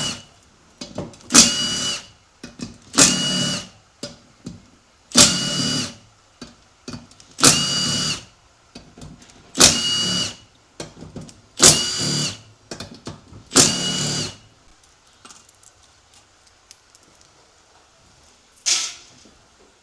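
Power driver spinning in short bursts, about one every two seconds, eight times and then once more near the end, with a ringing whine at each stop. It is backing bolts out of a 6L80 transmission's oil pump to open it up for inspection.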